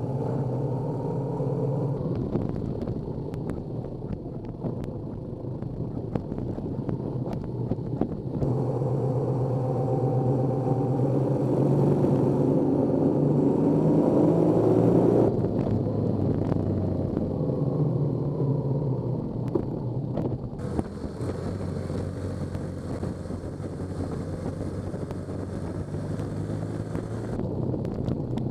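BMW adventure motorcycle running under way on knobby Mitas E-10 tyres, engine note over wind and road noise. The engine rises in pitch as it accelerates about halfway through, and the sound jumps abruptly at several edit cuts.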